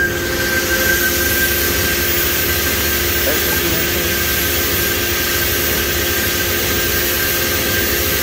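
Steady drone of running machinery: a constant whine over a loud hiss that grows stronger about half a second in.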